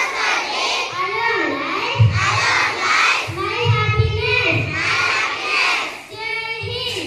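Many children's voices together in unison, rising and falling in a sing-song pitch, phrase after phrase.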